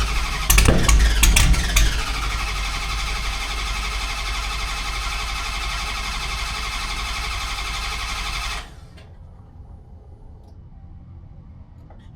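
Camcat's Hellcat V8 being cranked by its starter for about nine seconds without catching. It gives a few loud pops about half a second to two seconds in, as if trying to fire, and the cranking stops suddenly. This is a hard start after the car has sat about eight months.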